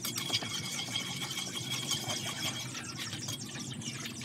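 Hot cooking oil crackling and sizzling in a wok over a wood fire, with a metal spatula scraping and stirring in the pan. A thin steady high tone runs under it and fades out about two-thirds of the way through.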